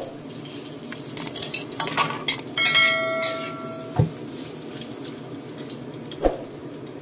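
Metal spatula scraping and clanking in a wok while eggplant fries, with the oil sizzling underneath. A clear metallic ring sounds about three seconds in, a dull knock about a second later, and another knock near the end.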